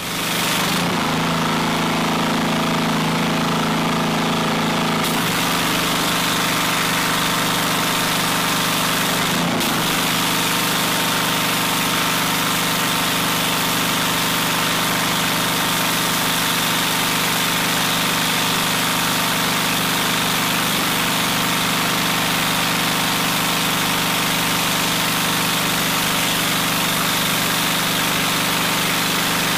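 Gas engine of a Powerhorse 3000 PSI pressure washer running steadily, with the hiss of the water spray. The engine note shifts slightly about five seconds in.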